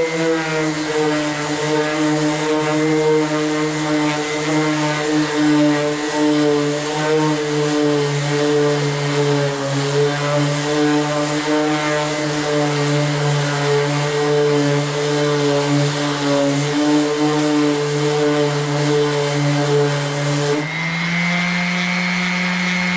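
A power sander running steadily with a hissing abrasive sound as it sands body filler on a car's quarter panel. Its pitch steps up about twenty seconds in.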